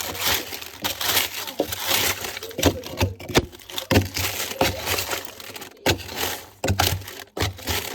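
Frozen food packages and ice being dug out of a deep chest freezer: continuous crunching and crackling of ice and plastic wrapping, with many sharp knocks of hard frozen items.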